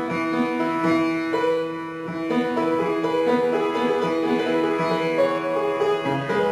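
Piano being played: a flowing melody over a steady pattern of repeated lower notes. Some of its keys are out of tune.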